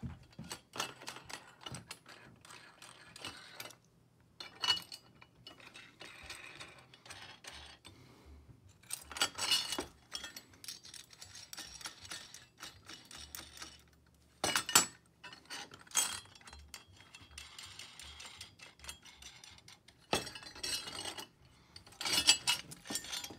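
Metal bracket parts clinking and knocking together as a pole mount bracket is fitted to an antenna mounting bracket and its locking hex nuts are put on the bolts. The sounds are irregular handling clinks and rattles, with a few sharper knocks.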